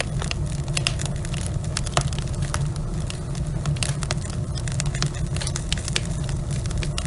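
Log fire in a fireplace crackling: irregular sharp pops and snaps over a steady low rumble of the burning logs.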